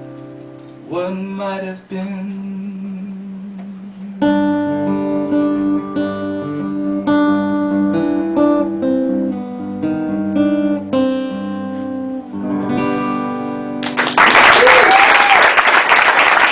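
Two acoustic guitars picking the instrumental close of a country ballad, single notes ringing over held bass notes. About fourteen seconds in, a loud rush of noise with no clear pitch cuts in and takes over.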